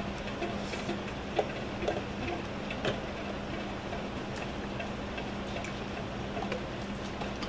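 Faint scattered clicks and taps as a plastic measuring jug is set on a digital kitchen scale and the scale's button is pressed, over a steady low hum.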